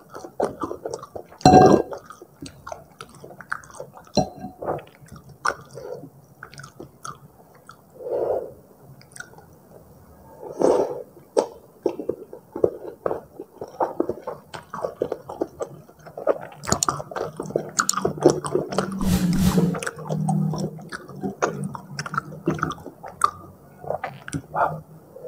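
Close-miked chewing of Indomie goreng rendang instant fried noodles: a steady run of wet mouth clicks and smacks, with a louder smack about a second and a half in.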